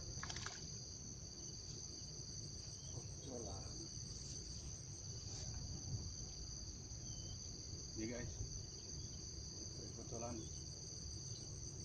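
A steady, high-pitched insect drone.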